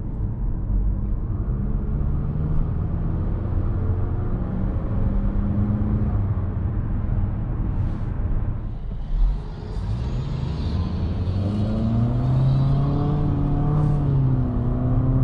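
Cabin sound of a 2021 Infiniti QX50 under way: a steady low road and tyre rumble with the hum of its 2.0-litre turbocharged four-cylinder, whose pitch rises and falls in the second half. There is a short thump about nine seconds in.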